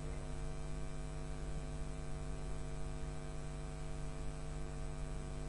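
Steady electrical mains hum, a buzzing drone of many evenly spaced overtones at an unchanging level.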